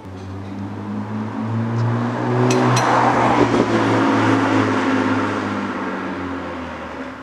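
Exhaust of a BMW E93 328i's N52 straight-six, with resonator and muffler deleted, driving past. It grows louder as the car approaches, peaks about three seconds in with two short sharp cracks, then fades away.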